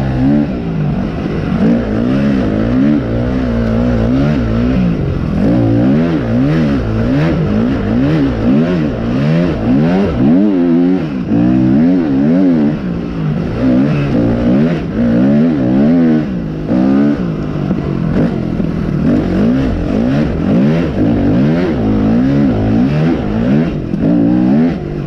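Dirt bike engine revving up and falling back over and over as it is ridden, the pitch rising and dropping in quick swings less than a second apart as the throttle is worked.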